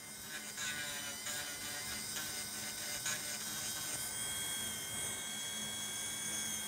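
Electric nail file (e-file) running steadily with a small cone-shaped bit lightly working the cuticle area of a nail, giving a steady high-pitched whine.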